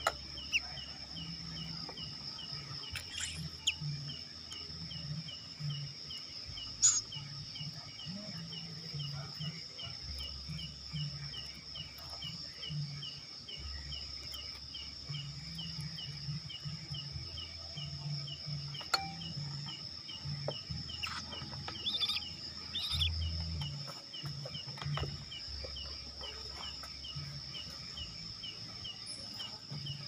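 Night insects: a steady high-pitched drone with a fast, even train of cricket chirps beneath it, broken by a few faint clicks.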